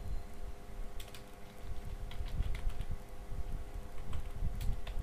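Computer keyboard keys clicking at an irregular pace as a command is typed and corrected, over a low steady hum.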